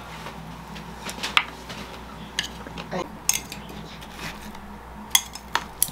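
Scattered light clicks and clinks of chopsticks against a plastic food container and a ceramic bowl, as watermelon pieces are picked out and served.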